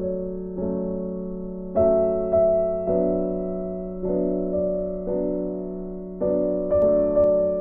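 Slow, soft piano music: chords struck about once a second, each ringing and fading away before the next.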